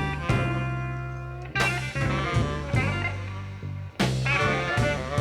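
Live blues band playing a slow blues: guitar picking single notes, some of them bent upward, over a steady bass line.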